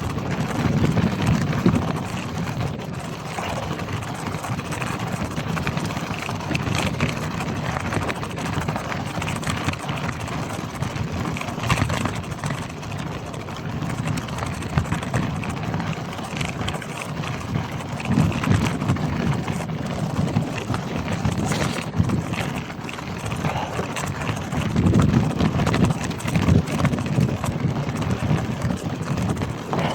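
Marin Gestalt gravel bike rolling over a rough trail: a steady rush of tyre noise with constant small rattles and knocks, and gusts of wind rumbling on the microphone now and then.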